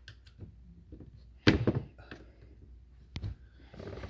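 Tool knocks and clicks while prying a glued-in speaker out of a car door: one loud thunk about a second and a half in, a sharp click near three seconds, and a few light taps.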